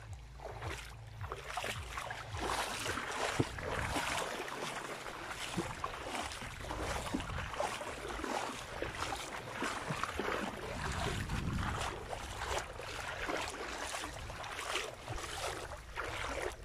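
Small wavelets lapping and splashing irregularly in shallow water close to the microphone, with wind rumbling on the mic.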